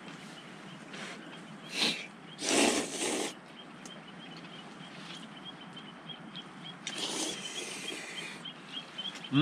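Pasta noodles being slurped in short noisy bursts: one brief slurp about two seconds in, a longer one just after, and another around seven seconds in. Under them runs a faint high ticking, repeating about three times a second.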